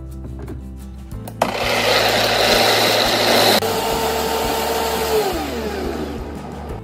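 High-powered countertop blender grinding soybeans with warm water into soy milk slurry for tofu. It starts suddenly about a second and a half in with a loud whir and a high whine, drops abruptly in level partway through, and near the end its pitch slides down as the motor slows.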